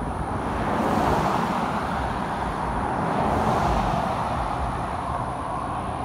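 Steady rushing rumble of passing vehicle noise, swelling about a second in and again around three and a half seconds.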